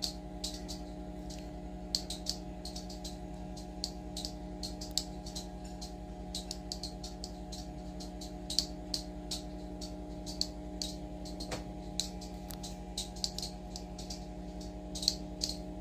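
Rapid, irregular light clicks, like typing, over a steady hum.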